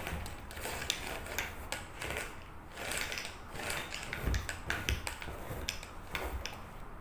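Sticky lint roller rolled back and forth over fabric sofa cushions, its plastic roller rattling with many irregular small clicks over a soft rustle.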